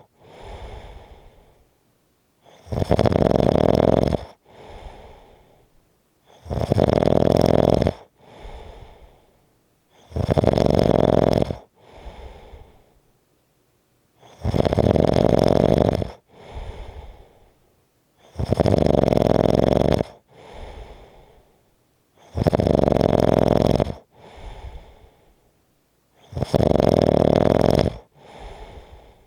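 A person snoring heavily in a steady rhythm: a loud snore about every four seconds, each followed by a quieter, shorter breath sound and a brief silence.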